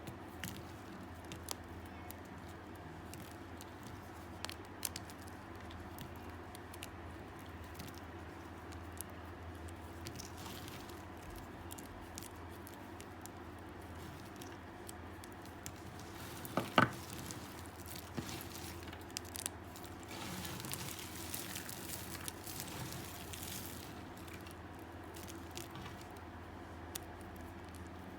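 Dry, hardened bar soap being cut into small pieces with a knife: scattered crisp crunches and clicks. A single loud snap comes about two-thirds of the way through, followed by a few seconds of continuous crumbly scraping.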